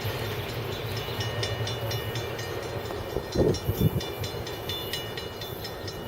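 Union Pacific freight train rolling past with a steady low rumble and rapid irregular clicking of wheels over the rails, over faint high ringing tones from the wheels. A brief louder sound rises above it about three and a half seconds in.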